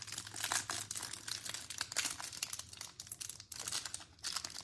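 Clear plastic wrap around a stack of trading cards crinkling and tearing as fingers pick at it and peel it open, a dense run of small crackles.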